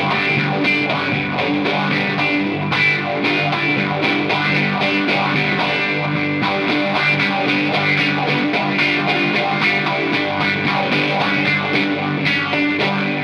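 Distorted electric guitar playing lead in a live instrumental rock piece, with a steady beat underneath.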